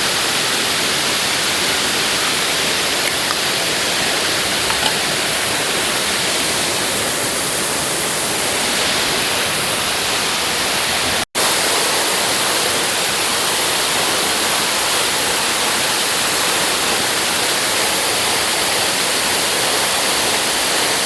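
Steady rush of water, heard as an even, loud hiss, cut off for an instant about eleven seconds in.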